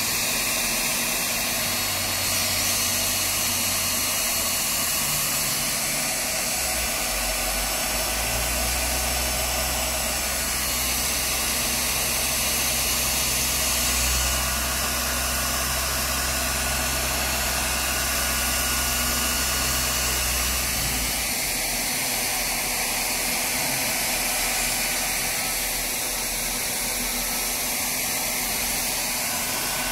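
Leister Triac ST hot air gun running, its fan blowing hot air in a steady airy hiss with a low hum underneath that shifts a couple of times. The fan motor is running again after its burnt-out stator was repaired.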